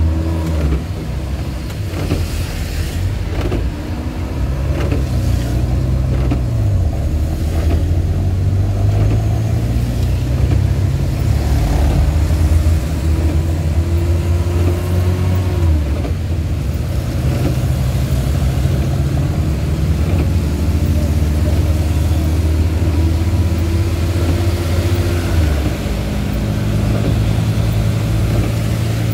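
Suzuki Carry 1.0's small four-cylinder engine pulling through the gears, heard from inside the cab. Its pitch climbs and then drops sharply about three times as the manual gearbox is shifted, over a steady hiss of heavy rain on the body and windscreen.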